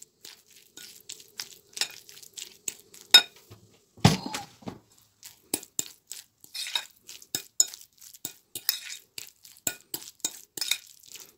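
Steamed squash being mashed with a metal fork in a bowl: irregular clinks and taps of the fork against the bowl, with one louder knock about four seconds in.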